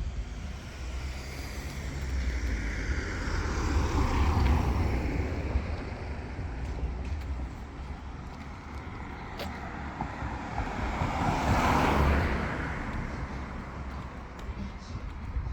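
Two cars passing one after the other on a residential street, tyre and engine noise swelling up and falling away in pitch as each goes by, the first about four seconds in and the second about twelve seconds in, over a steady low traffic rumble.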